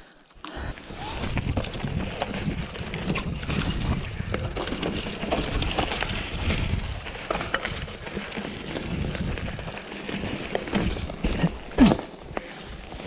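Full-suspension mountain bike (Giant Trance) ridden over a forest dirt trail: tyres rolling over dirt and roots, with the drivetrain and suspension clattering. It starts about half a second in. Near the end there is one brief louder sound that rises in pitch.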